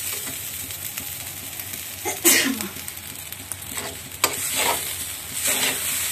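Fried rice being stir-fried in a metal kadai: a steady sizzle under irregular scraping strokes of a flat spatula through the rice and against the pan, about one a second. The loudest scrape comes about two seconds in, and a sharp tap of the spatula on the pan about four seconds in.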